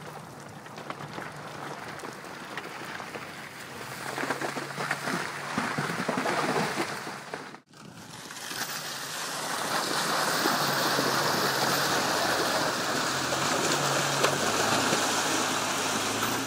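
Four-wheel-drive vehicle driving along a muddy, partly frozen trail: a low engine hum under a steady rushing noise from tyres and wind. The sound drops out briefly about halfway through, then comes back louder and more even.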